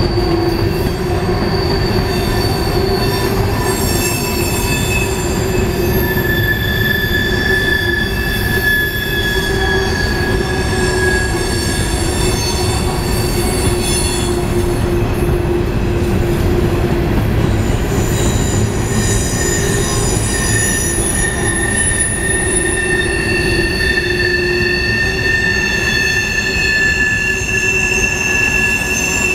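Freight train cars rolling past: a steady low rumble of steel wheels on the rails, with several high-pitched wheel squeals, each held for a few seconds, coming and going.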